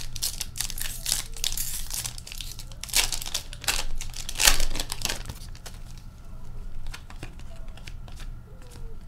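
A hockey card pack's wrapper being torn open and crinkled in the hands, with loud rustling surges about three and four and a half seconds in. After that come softer flicks and clicks of the cards being handled.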